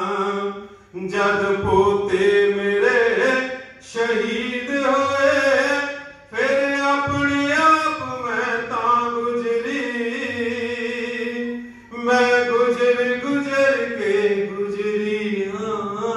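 A man singing a slow Punjabi devotional song through a microphone, drawing out long held notes in several phrases with short breaks for breath between them.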